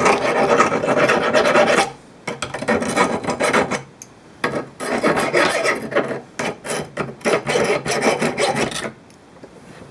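An abrasive rasping back and forth along the edge of a freshly cut strip of aquarium glass, taking off the sharp edge. The strokes come in quick runs, with short pauses about two and four seconds in, and stop shortly before the end.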